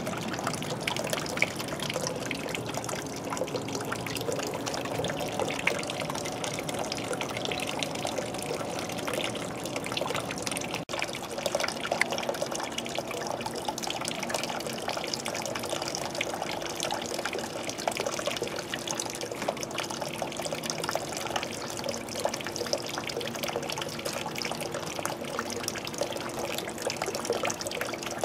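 Water from a swimming pool trickling and splashing steadily, with a faint steady hum underneath; the sound briefly drops out about eleven seconds in.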